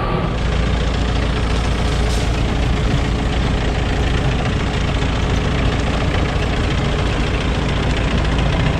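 A large farm machine's engine running steadily, an even, unbroken mechanical noise with a constant low hum.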